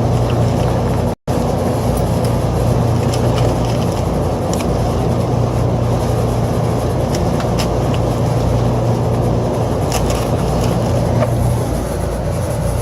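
Steady machine drone with a low hum, with a few light clicks scattered through it and a brief dropout about a second in.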